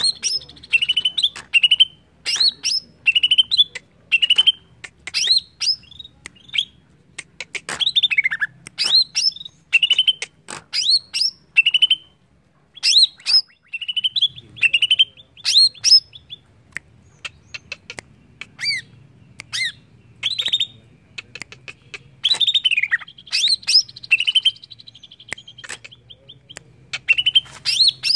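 Male cucak ijo (green leafbird) singing: fast runs of sharp, loud whistled notes, many sweeping downward, in repeated bursts with a short break near the middle.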